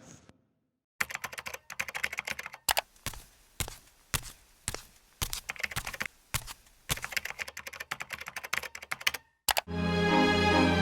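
Rapid, irregular clicking and tapping in quick runs, starting about a second in. Music starts near the end.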